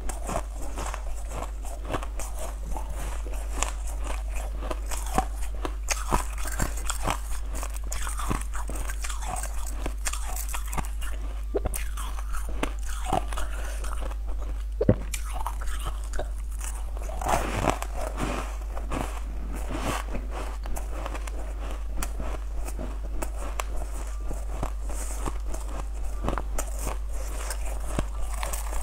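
Frozen blue-dyed ice cubes bitten and crunched close to a lapel microphone: a continuous run of sharp cracks and crunching chews. A steady low hum runs underneath.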